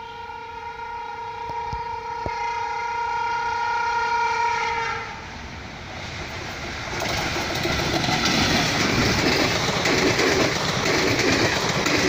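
WCAM/3 electric locomotive's horn held in one long steady blast of about five seconds, cutting off suddenly. Then the noise of the express train passing at speed, wheels clattering over the rail joints, grows louder and fills the rest.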